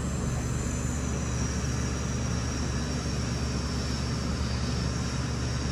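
Steady low hum and hiss of background noise, with no distinct event.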